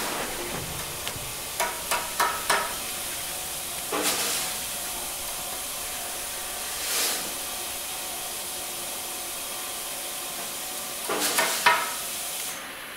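A steady hiss, with sharp clinks or knocks that ring briefly: a quick cluster of four about two seconds in, one at about four seconds, a soft whoosh in the middle, and another cluster near the end.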